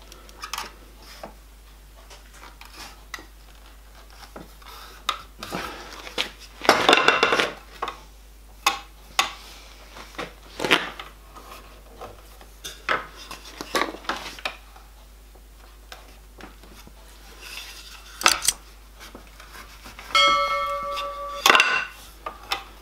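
Annealed copper sheet being pressed and bent by hand around copper firebox plates with a flat wooden block: irregular knocks, scrapes and rubbing of wood and metal. A short ringing tone sounds about twenty seconds in.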